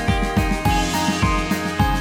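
Background music: an upbeat tune with plucked, guitar-like notes over a steady drum beat.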